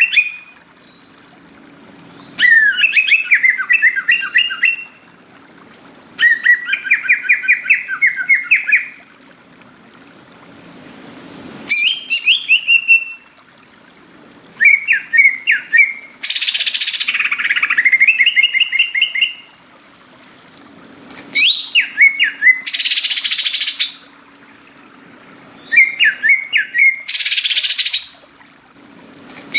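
Green leafbird (cucak ijo) singing loudly in about seven bouts of rapid, warbling whistled phrases with short pauses between them, and a few harsh hissing notes mixed in. A faint steady low hum runs underneath.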